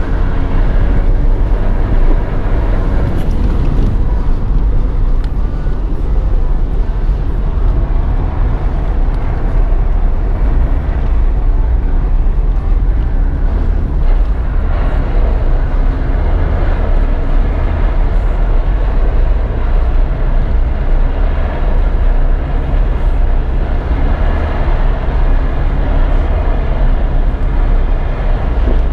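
BMW 318's four-cylinder engine under hard throttle, heard from inside the cabin, its pitch shifting as the car is driven fast and held in drifts on ice.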